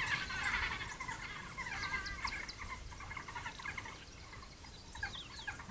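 African wild dogs twittering and squealing in a fight, a dense run of short high-pitched calls picked up by a camera trap's microphone, thinning out toward the end.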